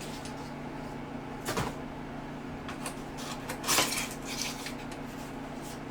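Cardboard packaging being handled: a short knock about a second and a half in, then a louder rustling scrape near the middle, over a steady low hum.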